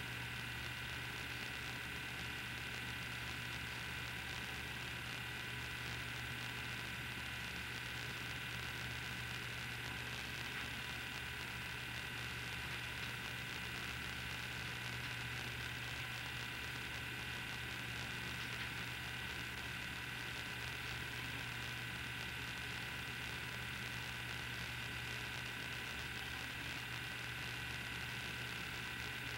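Steady hiss with a constant low hum and faint steady whining tones, unchanging throughout: the background noise of the film transfer's soundtrack, with no sound from the scene itself.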